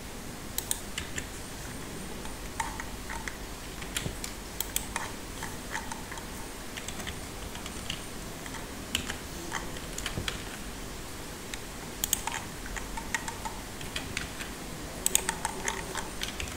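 Computer keyboard keys and mouse buttons clicking in short, irregular clusters, over a faint low hum.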